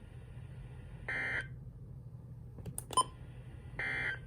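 Two short bursts of EAS digital data tones (SAME), the buzzy squawk of an alert code, each about a third of a second long and a little under three seconds apart, with a few sharp clicks between them. Their shortness and their place right after the warning text fit the end-of-message code closing the warning.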